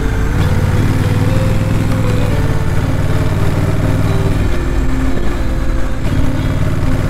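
Honda Rebel 1100's parallel-twin engine and exhaust running steadily while riding in traffic, with background music laid over it.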